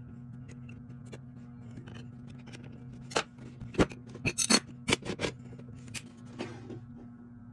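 A run of sharp metallic clicks and clanks, about ten in three seconds, from a router's parts being handled as its dovetail bit, collet and base plate with brass guide bushing are fitted, over a steady low hum.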